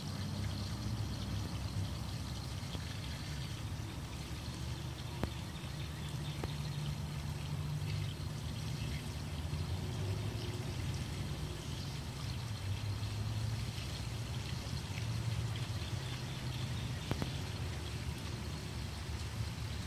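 Water trickling steadily onto grass, over a low steady hum, with a couple of faint clicks.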